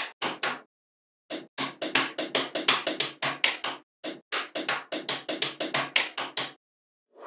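Small magnetic balls clicking and clacking as sheets of them are snapped together and pressed into place: a quick run of sharp clicks, several a second, after a short pause about a second in.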